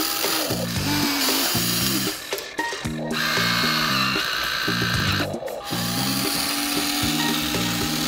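Small electric toy motor whirring over background music with a stepping, bouncy melody. The whirr drops out briefly about two and a half seconds in and again about five seconds in.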